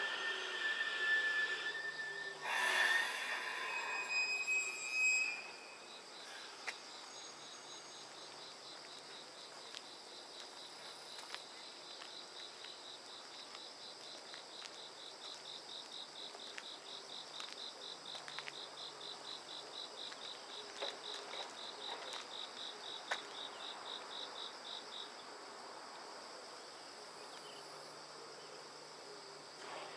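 JR 313 series electric train stopping with a falling whine and a short hiss of air about two to three seconds in. Then an insect chirping in rapid, even pulses, stopping a few seconds before the end.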